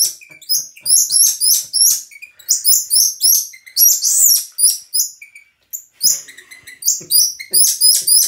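Small monkey giving rapid, very high-pitched chirping calls, about four a second, with a brief lull about five seconds in. These are scolding warning calls from a monkey protesting its bath.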